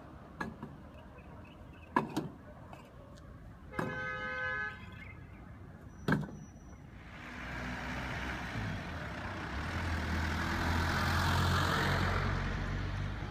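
Road traffic. There are sharp knocks about two and six seconds in, and a short car-horn toot about four seconds in. From about seven seconds, a vehicle's engine hum and tyre noise grow louder and are loudest near the end.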